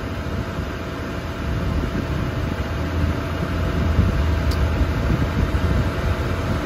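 Steady whirring hum of a DC fast charger's cooling fans and power electronics running while it charges a vehicle at about 100–115 kW, with a faint click about four and a half seconds in.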